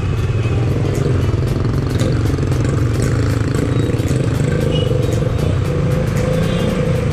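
Suzuki Raider 150 Fi's single-cylinder engine running as the motorcycle creeps through traffic, with the engine note rising a little past the halfway point as it pulls away.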